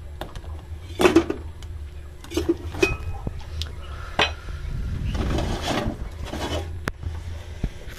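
Metal ladle clinking and scraping against a stainless steel pot while stirring thick cornstarch sauce: a few sharp knocks, with a longer stretch of scraping a little past halfway. A steady low hum runs underneath.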